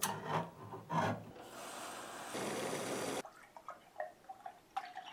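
A hand-held manual can opener clicking and grinding as it cuts around the lid of a can. A steady hiss follows for about two seconds. Near the end, milk pours from a carton into a tall glass, with a faint ringing tone as the glass fills.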